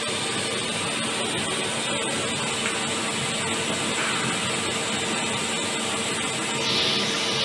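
CNC machining center running, its spindle turning a cutting tool into a metal plate with coolant hissing, a steady mechanical whir and hiss that shifts in tone near the end.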